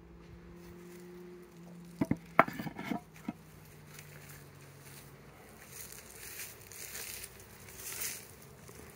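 A bee buzzes in a steady low hum that fades out about five seconds in. A quick burst of sharp clicks and knocks comes about two to three seconds in, followed by rustling of grass and leaves.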